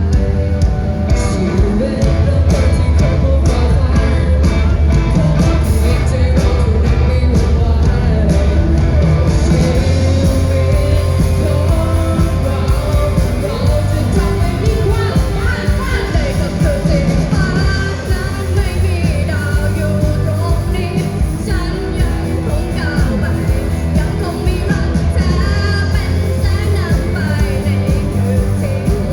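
Band playing a rock song live, with singing; drums and bass carry a loud, steady beat, and the vocal line stands out more from about halfway.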